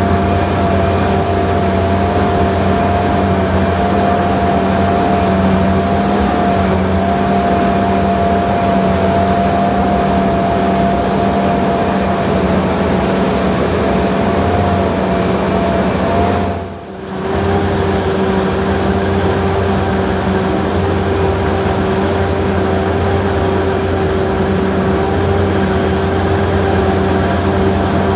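Large diesel farm machinery running steadily under load, with a low rumble and a steady whine over it. About two-thirds of the way through the sound dips briefly, and then it runs on with a slightly different whine.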